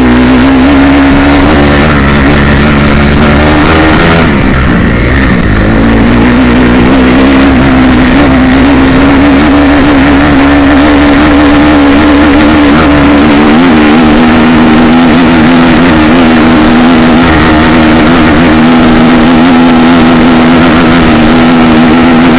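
Stock 2016 Honda CRF250R's single-cylinder four-stroke engine running at steady high revs while the dirt bike is ridden across a field, probably in fourth gear. Its pitch dips about four seconds in, then climbs back and holds steady, with a small step down later on.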